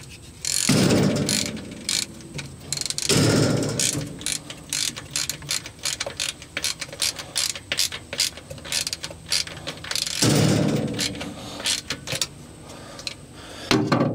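Hand ratchet clicking in quick runs as a brass fitting is tightened into the engine, with three louder rushes of noise in between.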